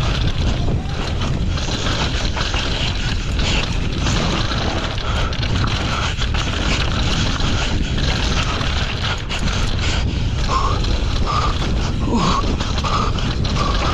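Downhill mountain bike ridden at race speed over a dry, dusty dirt trail: steady wind rush on the camera microphone with the tyres on loose dirt and the bike rattling and knocking over bumps.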